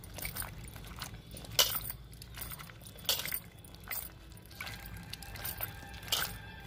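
Water sloshing and splashing in a steel bowl as hands stir and rub cubes of white pumpkin to wash them, in irregular splashes about a second apart, the strongest about one and a half seconds in.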